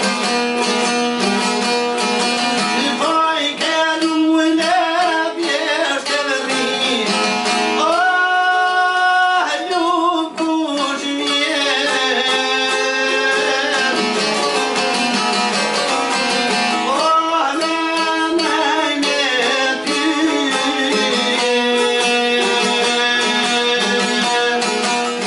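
A man singing an Albanian highland folk song in bending, ornamented phrases, with a long held note about eight seconds in. Two çiftelis (long-necked two-string Albanian lutes) are strummed throughout under a steady drone.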